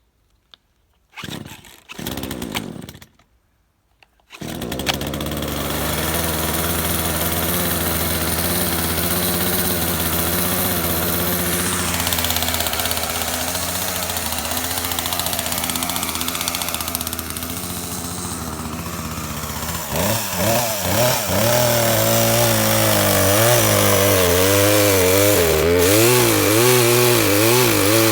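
Poulan Pro gas chainsaw with an 18-inch bar being pull-started: two short bursts, then it catches about four seconds in and runs steadily. From about twenty seconds in, the engine speed rises and falls repeatedly and it gets louder as the saw cuts into the pine.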